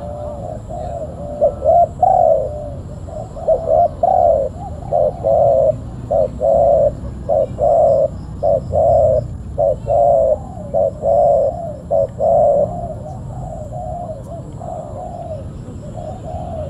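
Spotted dove cooing: a long run of short, repeated coo notes that fades to fainter calls near the end. Small birds chirp faintly in the background.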